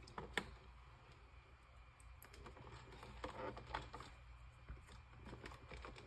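Faint, scattered light clicks and taps of small plastic parts being handled, about half a dozen over a few seconds.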